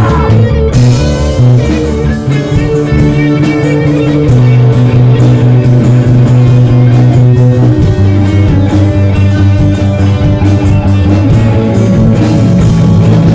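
Live rock band playing an instrumental passage: guitar over a drum kit, with held low bass notes that change every few seconds.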